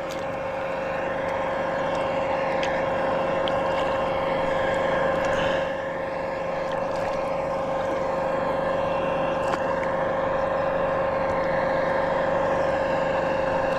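Steady drone of a running motor, holding one pitch throughout, with a few faint clicks.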